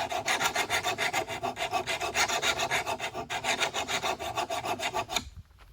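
Flat hand file scraping along the edge of a steel lawn mower blade in fast, even strokes, about five or six a second, until it stops about five seconds in. The file is a well-worn one, so it cuts slowly.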